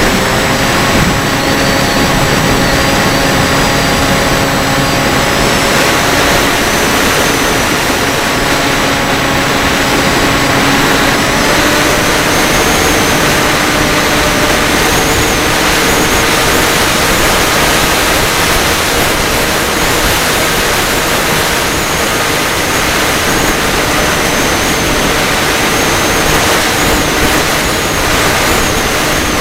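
FPV drone's motors and propellers whining, with a heavy rush of air noise. The drone gives several steady tones that step to new pitches every few seconds as the throttle changes.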